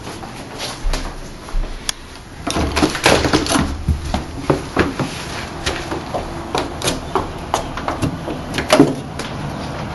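A French door's lever handle and latch clicking and rattling as the door is unlatched and swung open, followed by a run of light knocks from footsteps on a wooden deck, with one sharper knock near the end.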